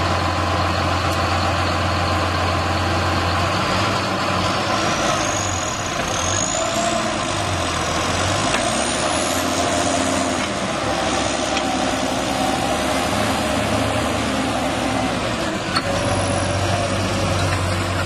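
John Deere 7530 Premium tractor's six-cylinder diesel engine running steadily under load as it pulls a field cultivator through the soil. A faint high whine rises in pitch between about four and ten seconds in.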